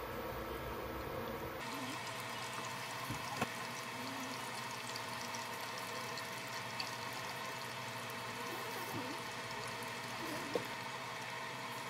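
Cheese balls frying in shallow oil in an electric pan, a steady sizzle, muffled under a glass lid at first and brighter once the lid is off. Wooden chopsticks click sharply against the pan a few times as the balls are turned.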